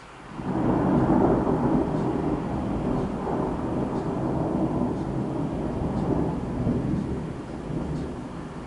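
Thunder: a sudden loud crack about half a second in that rolls on as a long, deep rumble, slowly dying away.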